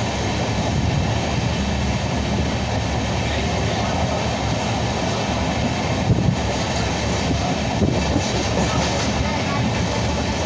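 Steady rumble of a moving Indian Railways express train, with a few brief knocks a little past the middle.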